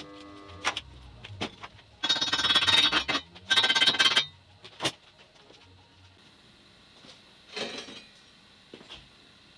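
Slag being cleaned off a fresh stick weld on steel: two spells of fast, rapid scraping and knocking on the metal about two and three and a half seconds in, with a few sharp clicks before them. Near the end a steel bracket clinks briefly as it is handled on the frame.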